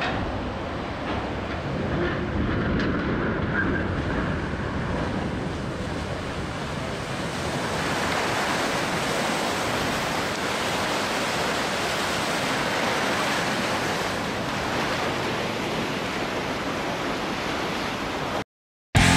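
Launch wave from a side-launched cargo ship surging across the river and washing over the bank, a steady rush of churning water that grows louder about eight seconds in. It cuts off suddenly near the end.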